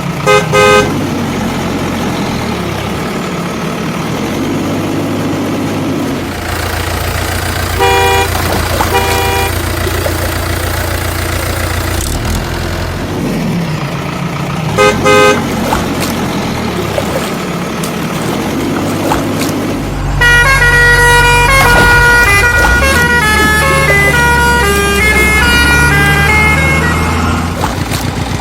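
Vehicle horn honking in short pairs of toots over a steady low engine drone. Later, a run of short notes at changing pitches plays for several seconds, like a tune.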